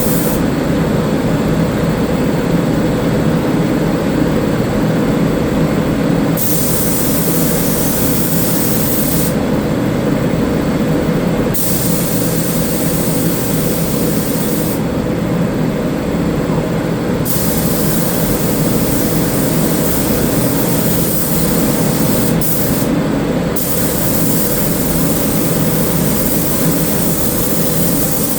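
Paint spray gun hissing as 2K sealer primer is sprayed in several passes, each a few seconds long, the hiss starting and stopping with the trigger. Beneath it runs a steady low mechanical drone.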